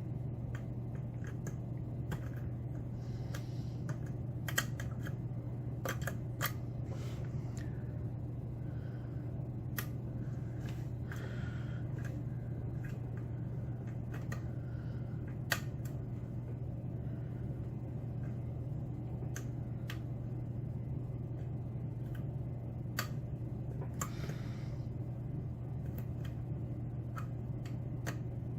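Scattered small clicks and light scrapes of a dimple pick working the pins inside a Mauer SKG dimple lock cylinder, at irregular intervals, over a steady low hum.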